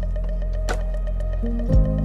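Background music: sustained synth chords with a bright percussive hit about a third of the way in, then a low bass thump as the chord changes near the end.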